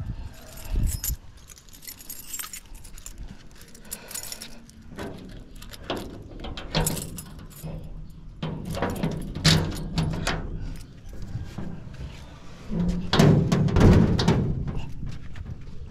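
Keys jangling and the metal clicks, clanks and rattles of a steel gate being unlocked and pushed open, loudest near the end.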